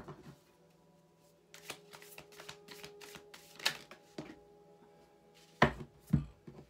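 Hand-shuffling a deck of tarot cards: soft flicks, rustles and clicks of the cards, with two louder thumps near the end.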